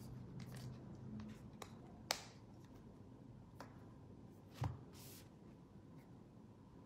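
Faint handling noises of a small plastic object turned over in the hands: a few scattered sharp clicks, the sharpest about two seconds in, and a soft knock a little past the middle.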